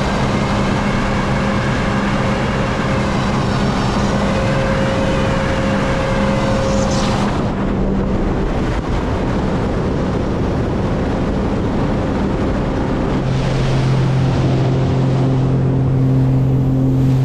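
Sea-Doo Explorer Pro personal watercraft running fast across the lake: a steady engine and jet-pump drone over the rush of water and wind. About thirteen seconds in, the engine note drops lower as the craft eases off.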